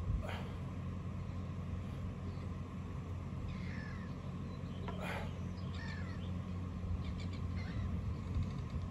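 Birds chirping and calling in short, scattered bursts, one a quick trill, over a steady low hum.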